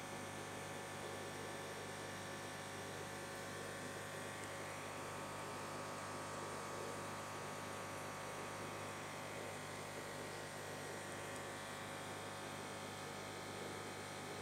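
Aquarium air pump running with a steady electric hum and buzz.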